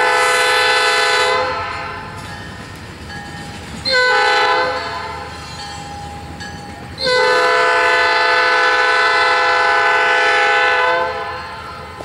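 Norfolk Southern EMD SD40-2 locomotive's multi-note air horn sounding for a grade crossing: a long blast, a short one about four seconds in, then a long blast of about four seconds. The rumble of the train rolling past sits beneath.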